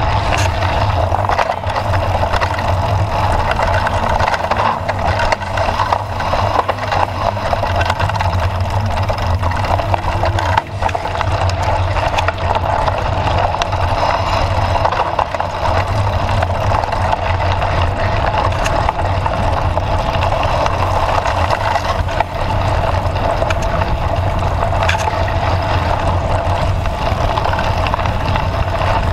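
Mountain bike rolling over a dirt trail: a steady rumble of tyres and riding noise with frequent short rattles and knocks from the bike over bumps, and one sharper knock about ten seconds in.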